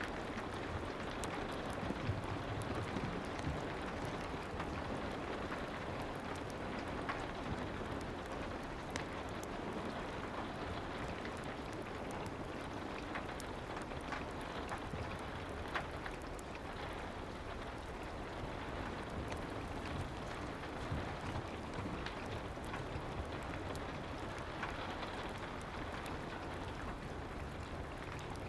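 Steady soft rain, with scattered small pops and crackles of a fireplace over it.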